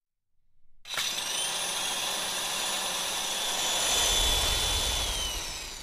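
A jet-like rushing whoosh with a steady high whine that starts suddenly about a second in, swells slightly, then falls in pitch as it fades near the end.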